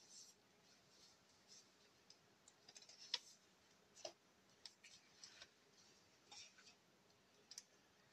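Faint handling of cardboard packaging and cards: scattered light clicks and soft rustles as a card is slid out of a card sleeve, with a sharper click about three seconds in.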